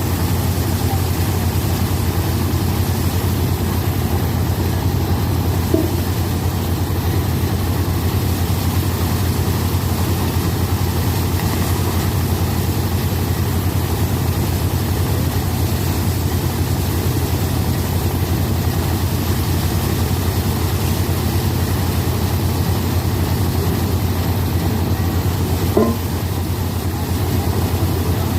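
Power rice thresher running steadily, with a constant low drone. There is a short knock about six seconds in and another near the end, after which it runs slightly quieter for a moment.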